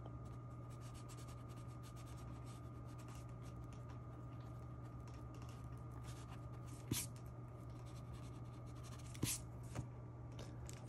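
Faint, fast scratchy rubbing of a pen-style eraser stick on sketchbook paper as it lifts graphite to draw light marks into a shaded area. A steady low hum runs underneath, and a few light clicks come about seven seconds in and near the end.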